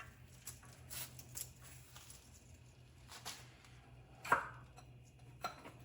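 Scattered light metallic clicks and knocks, with one louder clank that rings briefly about four seconds in, as a truck's transmission and transfer case are handled on a transmission jack. A low steady hum runs underneath.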